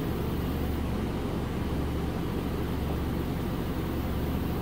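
A steady, low machine hum.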